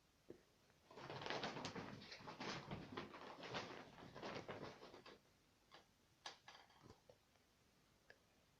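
Cat panting after running, tired: quick, short breaths, about three a second, for roughly four seconds, then a few faint clicks.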